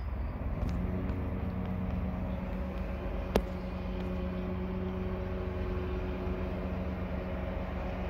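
Zero-turn riding lawn mower engine running steadily in the distance. A single sharp click about three and a half seconds in.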